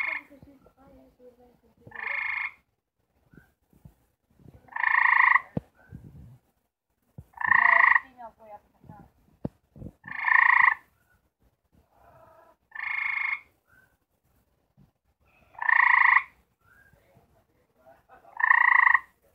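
Gray treefrog giving its mating call: a short trill about every two and a half seconds, eight calls in all.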